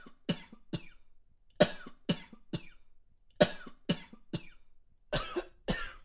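A person coughing repeatedly in bouts of two or three short, sharp coughs, about ten in all. The cough is from a person reported to be COVID-19 positive.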